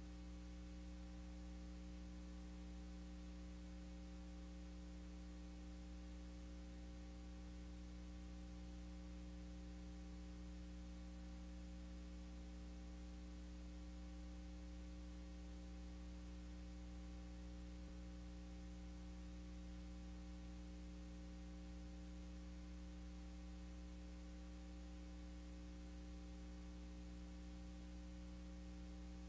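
Faint, steady electrical mains hum with a stack of overtones over tape hiss, with no other sound: the blank, black stretch of an old U-matic videotape transfer.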